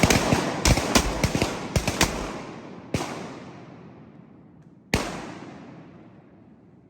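Duck hunters' shotguns firing a rapid volley of overlapping shots for about two seconds, then two single shots, about three and five seconds in. Each shot rings out and fades slowly.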